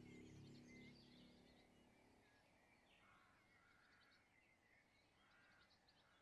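Faint birdsong: short chirps and trills from small birds, repeating through the woods. Soft background music fades out over the first two seconds.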